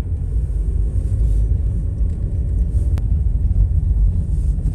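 Steady low rumble of a car driving over a snow-covered dirt road, heard from inside the cabin, with a single sharp click about three seconds in.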